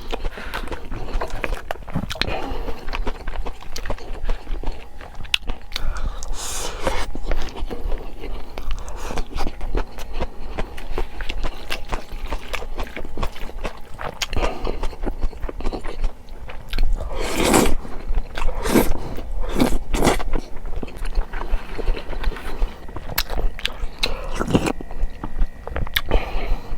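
Close-miked eating: a person biting and chewing food, with many small sharp mouth clicks and crunches, and a few louder noisy bursts partway through and near the end.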